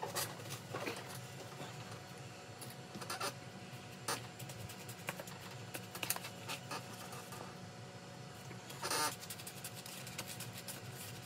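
Scattered light scratches, rustles and clicks of things being handled, with a longer rustle about nine seconds in, over a steady low hum.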